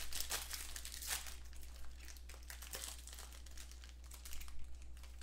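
Gold foil wrapper of a trading card pack crinkling and tearing as it is pulled open by hand. The crinkling is busiest in the first two seconds, then thins out, with a short burst near the end.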